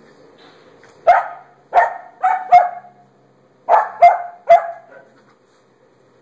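A small puppy barking during rough play: seven short, high, sharp barks in two quick runs, four and then three.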